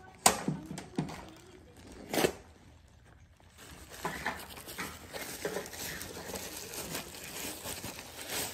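Packaging being unwrapped by hand: crinkling and tearing. A few sharp knocks come in the first two seconds or so, then denser continuous rustling from about halfway through.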